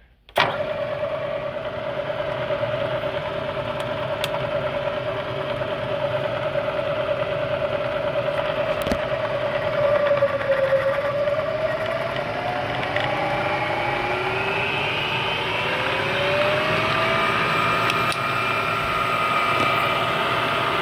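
Bridgeport 2 HP variable-speed milling head switched on about half a second in, its motor and spindle drive running with a steady whine. About halfway through, the speed handwheel is cranked and the whine climbs in pitch over several seconds as the spindle speeds up, then holds at the higher speed.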